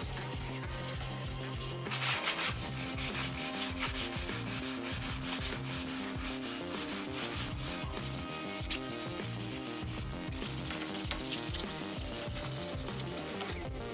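Sanding: rapid back-and-forth rubbing strokes of abrasive on a surface, starting about two seconds in and pausing briefly near ten seconds, over faint background music.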